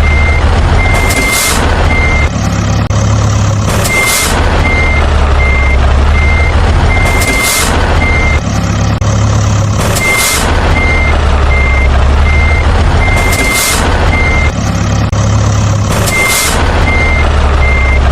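Truck reversing: a steady beep-beep-beep of a backup alarm over a low diesel engine hum, with short air-brake hisses every few seconds. The same sequence repeats about every six seconds, like a looped sound effect.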